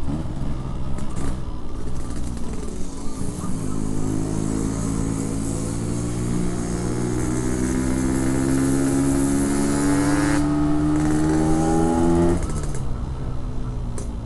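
Yamaha RX-King's 135cc single-cylinder two-stroke engine breathing through a Packing Power PK1 aftermarket exhaust, pulling under throttle while riding. From about three seconds in the engine note climbs steadily for about nine seconds, then cuts off suddenly near the end.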